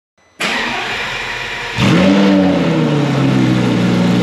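Lamborghini Gallardo Superleggera's dry-sump V10 being started after nearly two years standing: the starter cranks for about a second and a half, then the engine catches with a short rise in revs and settles into a steady fast idle.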